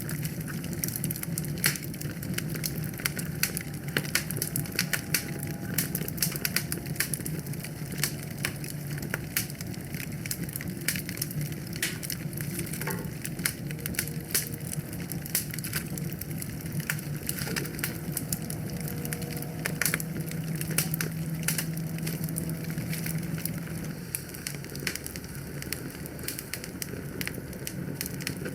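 Wood fire crackling and popping, sharp irregular snaps over a steady low rumble of burning, with the rumble dropping away near the end.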